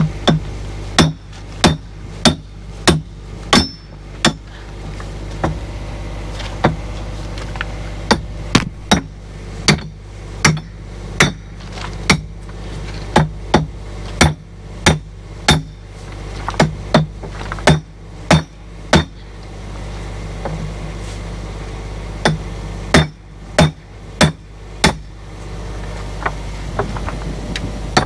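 Hammer blows driving steel retaining pins through new excavator bucket teeth into their adapters: sharp metal-on-metal strikes, about one and a half a second, in runs with a short pause about two-thirds of the way through. A steady low hum runs underneath.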